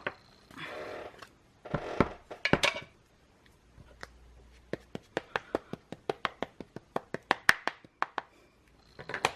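Light, quick tapping, about six taps a second for about three seconds near the middle: a rubber stamp being dabbed onto an ink pad to ink it. Before the tapping come a few short rustling and handling sounds.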